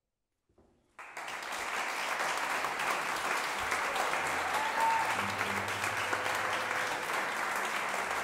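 Small audience applauding: clapping breaks out suddenly about a second in, out of silence, and carries on steady and dense.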